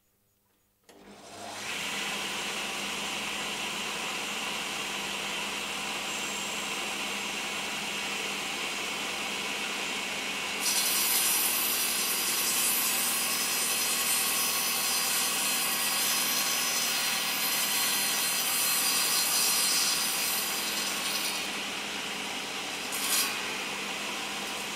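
Elektra Beckum UK 330 table saw switched on about a second in, spinning up and running steadily with no load. From about ten seconds in its blade cuts through a wooden board for some ten seconds, a louder, brighter sawing noise, then runs freely again, with a short sharp noise near the end.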